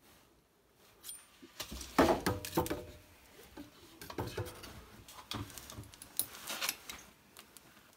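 Irregular clinks, knocks and clatter of metal plumbing parts being handled. Some strikes ring briefly, and the busiest clattering comes about two seconds in.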